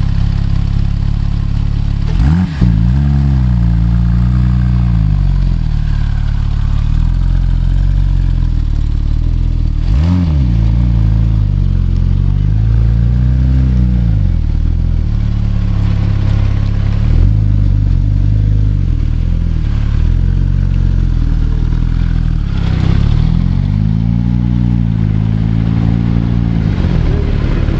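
Gemballa Avalanche's Porsche 911 flat-six idling, blipped to a quick rev about two seconds in and again near ten seconds, with smaller throttle blips and a longer rev-and-settle near the end.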